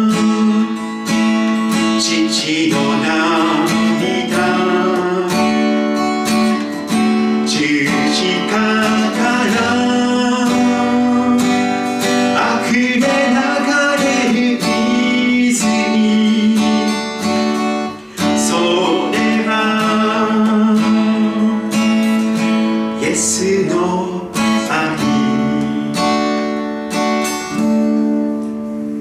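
Acoustic guitar strummed, playing the chords of a gospel worship song.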